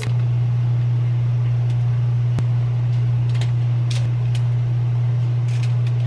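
A steady low hum, even throughout, with a few faint light ticks scattered through it.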